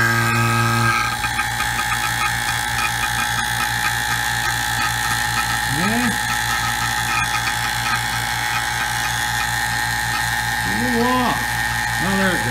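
Pittsburgh 3 CFM two-stage rotary-vane vacuum pump running while it pulls a deep vacuum, close to 30 inches of mercury. Its steady motor hum turns about a second in into a fast, even rattling clatter.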